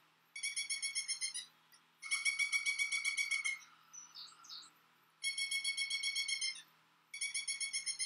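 Lesser flameback woodpecker calling: a fast trill of about eight notes a second, given in four bursts of a second or so each, with a few faint higher chirps in the pause near the middle.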